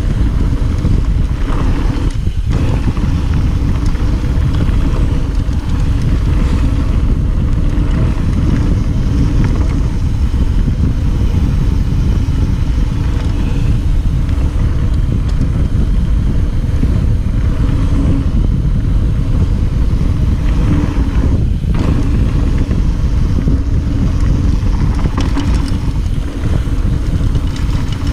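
Steady wind buffeting on a chest-mounted GoPro Session 5's microphone, with a loud low rumble from a mountain bike rolling quickly downhill over a dirt trail.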